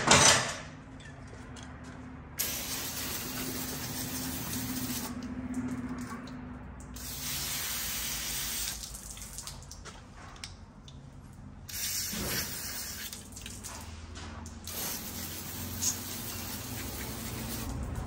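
Aerosol brake cleaner sprayed in four hissing bursts of one to three seconds each, degreasing leaked power steering fluid off the steering rack. A sharp clack sounds right at the start.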